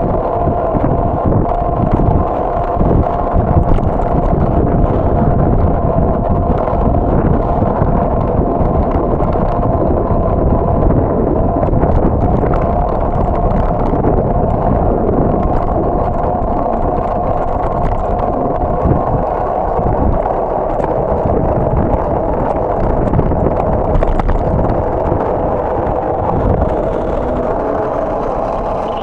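Road rumble and rattle of a bicycle rolling over asphalt, picked up by a camera mounted on the bike, with wind on the microphone and a steady hum underneath.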